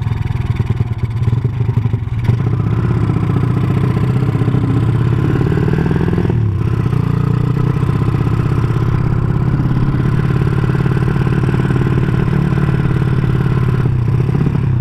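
Bored-out 200cc Honda Supra single-cylinder four-stroke with a CJDW aftermarket exhaust, running as the bike is ridden. The engine note dips briefly about six and a half seconds in and then climbs again.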